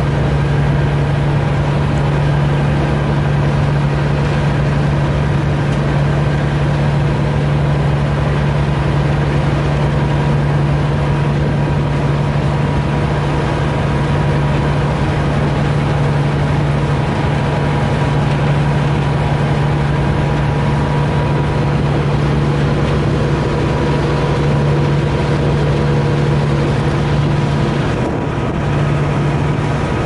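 Engine of a vehicle ferry running steadily under way: an even, deep drone with a steady hum above it, dipping slightly near the end.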